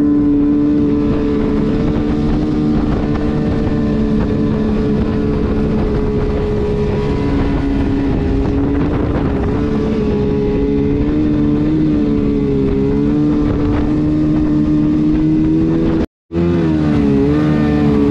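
Kawasaki 750 two-stroke jet-drive engine running steadily at speed, pushing a jon boat, with water rushing along the hull. The engine pitch wavers slightly now and then, and the sound cuts out briefly near the end.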